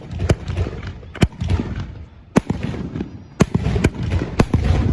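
Aerial fireworks going off: a run of sharp bangs, roughly one a second and some close together, each followed by a low rolling rumble.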